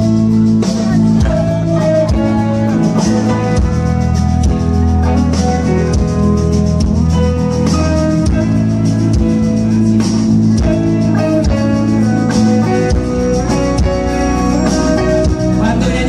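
Live pop-rock band playing an instrumental passage through the stage sound system: a guitar melody over electric bass and a drum kit, with no vocals.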